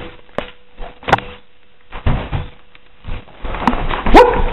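A wooden door and its handle being worked at without opening: sharp clicks about half a second and a second in, then knocking and scuffing that gets louder near the end.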